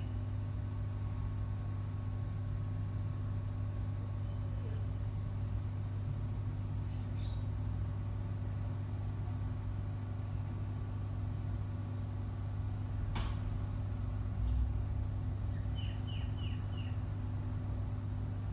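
Steady low vehicle hum, with a single sharp click about thirteen seconds in and a quick run of four short bird chirps near the end.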